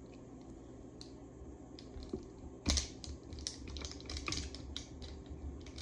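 Light clicks and taps of a plastic helmet visor, washer and screw being handled and lined up by hand with a small tool. The first half holds little beyond faint hum; a sharp click comes a little past the middle, then scattered, irregular light clicking.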